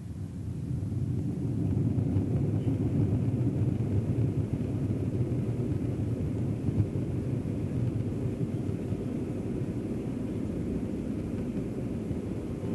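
Airbus A321 jet engines at take-off power: a deep, steady rumble that swells over the first two seconds, then holds and slowly fades.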